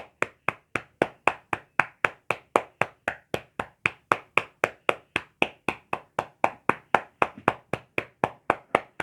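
Chest percussion by hand on a bedridden patient's back: rapid, even slaps, about four a second, struck to loosen phlegm that the patient struggles to cough up.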